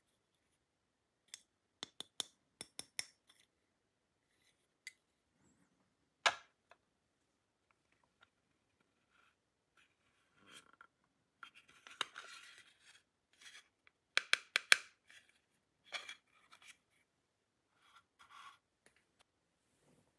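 Small plastic toy pieces and packaging being handled: scattered sharp clicks and taps, one louder snap about six seconds in, and bursts of scraping and rustling in the second half.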